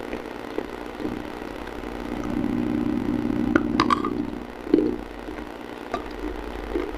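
Close-up crunching and chewing of a hard, brittle edible mineral such as chalk or baked clay, with a few sharp crunches around the middle, over a steady low hum.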